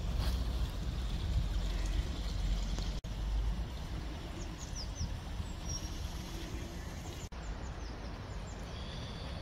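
Outdoor ambience: a low rumble that eases off after about three seconds, with small birds chirping in short, high, falling notes from the middle onward.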